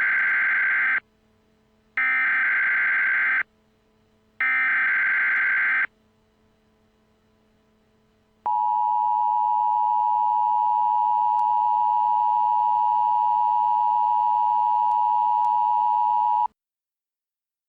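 Emergency Alert System alert: three identical bursts of SAME header data tones, each about a second and a half long, then the steady two-tone EAS attention signal held for about eight seconds and cut off abruptly.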